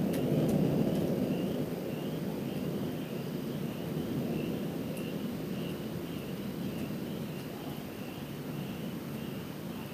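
Distant thunder rolling: a deep rumble that fades slowly. Faint regular chirping, a little under two a second, goes on behind it.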